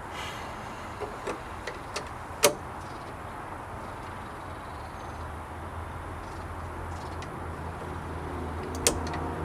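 Several light clicks, then one sharp click about two and a half seconds in and another near the end, typical of the metal hasp latch and hand tools being handled while fitting it to the wooden gate. A steady low hum runs underneath.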